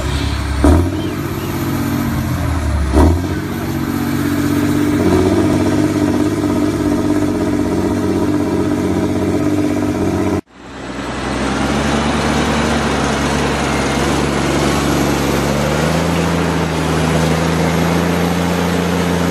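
Car engine and road noise heard from inside a moving car through a dashboard camera, a steady drone with a few short thumps in the first three seconds. About halfway through it cuts suddenly to a second car's drone, which rises a little in pitch near the end.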